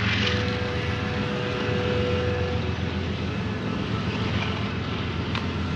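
G-scale model freight train running on outdoor track: a steady rumble of wheels and motors, with a thin whine that stops about two and a half seconds in. A single click near the end.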